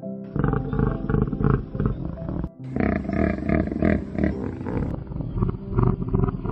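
A large animal's deep, rough calls in two long stretches, breaking off briefly about two and a half seconds in, over background music.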